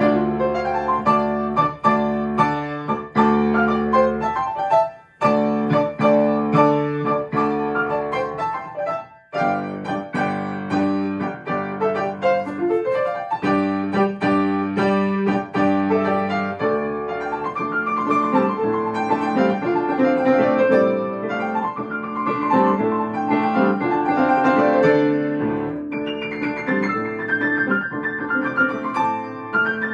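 Piano playing a lively piece in a continuous stream of notes, with two brief breaks about 5 and 9 seconds in.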